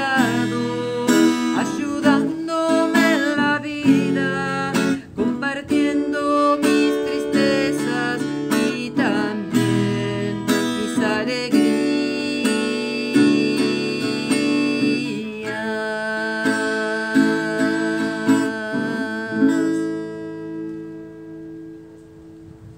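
Acoustic guitar strummed, with a woman singing over it. The song ends on a final chord that rings and fades away over the last few seconds.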